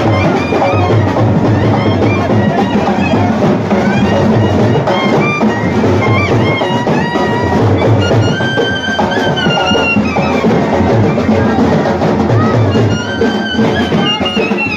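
Music with drums and percussion under a wavering melody line, loud and continuous.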